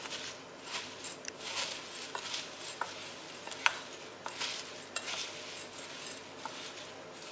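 Spoon stirring dry flattened rice flakes with grated coconut and jaggery in a ceramic bowl: a dry scraping rustle with repeated light clinks of the spoon against the bowl, the sharpest a little past halfway.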